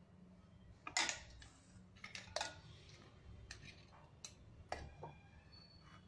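A metal spoon clinks and knocks against stainless steel pots while blended pomegranate pulp is scooped and stirred. There are about five sharp clinks, and the loudest comes about a second in.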